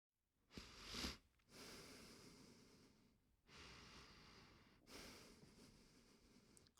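A person breathing quietly and slowly. A sharper in-breath comes about a second in, followed by three long, airy breaths with short pauses between them.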